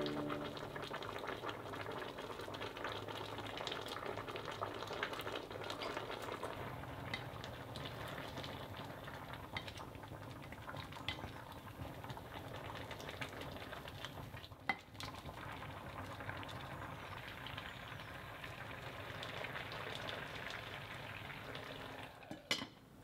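Pots simmering and bubbling on the stove, with chopsticks clicking against a stainless steel pot as noodles are stirred in boiling water. Near the end a glass pot lid is set down with a couple of sharp clinks.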